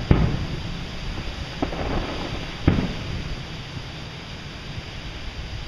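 Aerial firework shells bursting: a loud boom just after the start, a sharper bang about a second and a half in, and another boom near three seconds, each trailing off in a rumble. Strong wind rumbles steadily on the microphone throughout.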